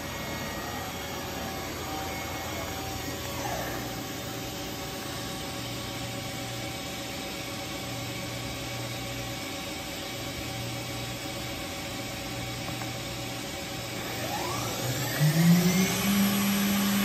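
Doosan DNM 5700 vertical machining center running with a steady hum, then about three seconds from the end its spindle spins up. The whine rises in pitch and settles into a steady, louder tone at full RPM, running smoothly.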